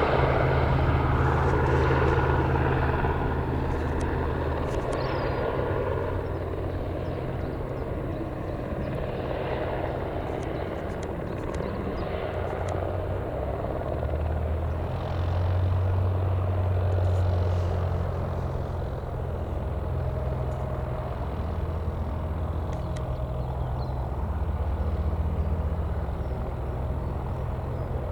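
Aircraft engine noise fading away over the first several seconds, leaving a steady low rumble that swells and ebbs a couple of times, with a few faint clicks.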